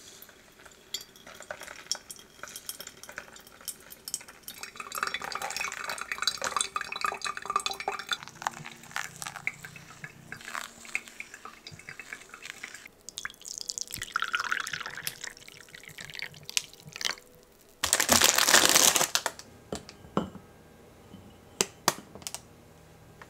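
Hot water poured in a thin stream from a gooseneck kettle onto ground coffee in a paper-filter pour-over dripper, with coffee dripping into the glass server below. About three-quarters of the way in there is a louder rush of about a second, and near the end a few light clinks of a ceramic cup and saucer.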